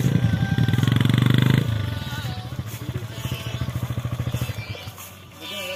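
Motorcycle engine running at low revs with a steady pulsing beat, loud at first, dropping off sharply about a second and a half in and then fading as the bike pulls away over the grass.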